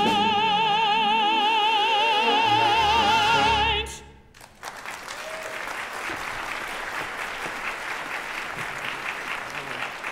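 A male opera singer holds a final high note on "paint" with vibrato over the orchestra, and the music cuts off together about four seconds in. After a short pause the audience applauds steadily.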